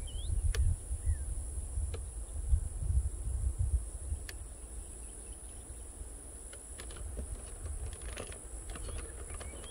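Steady high-pitched drone of insects over a marsh, with a couple of short bird chirps near the start. A low, uneven rumble is heard through the first few seconds and then fades.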